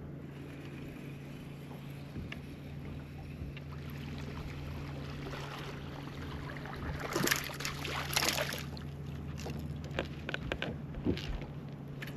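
Steady low hum of a fishing boat's motor, with a few noisy bursts about seven to eight and a half seconds in and a few sharp clicks near the end.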